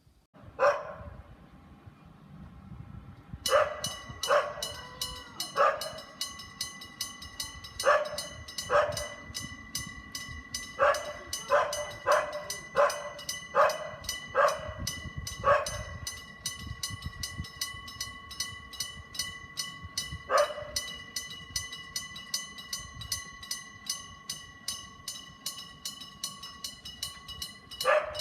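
A Japanese level-crossing warning bell starts up about three and a half seconds in and rings on with a fast, even ding over a held tone, above a low rumble. About fifteen louder sharp sounds break in at irregular intervals.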